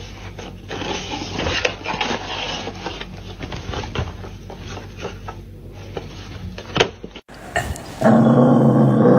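A stretch of rustling and scraping noise with scattered clicks. About eight seconds in, after a cut, a dog starts vocalizing loudly with a wavering pitch.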